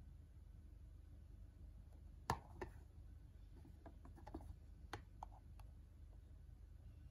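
Cardboard box being handled: a sharp tap about two seconds in, then a few lighter clicks and rustles of the packaging over near silence.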